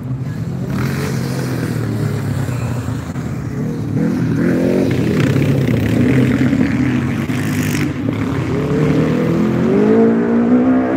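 Motocross sidecar outfit's engine revving hard on the dirt track, its pitch climbing under throttle about four seconds in and again near the end.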